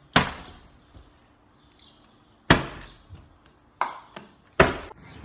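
Plastic water bottles flipped and landing on a wooden tabletop: three sharp thuds about two seconds apart, with a couple of lighter knocks between the last two.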